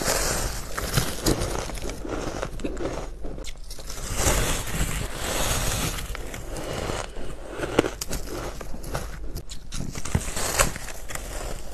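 Soft, powdery ice being bitten and chewed: a run of crumbly crunches with many small sharp crackles.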